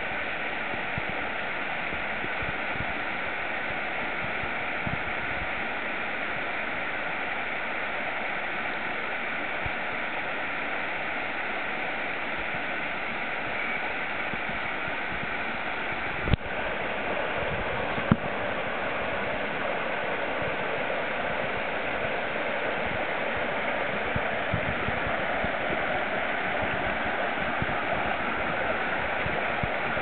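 Mountain stream cascading over rocks: a steady rush of running water. Two short clicks come about halfway through, and the rush grows a little louder after them.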